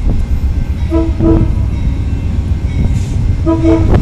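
Approaching Amtrak diesel locomotive sounding its chord horn: two short blasts about a second in, then a longer blast near the end, over a steady low rumble.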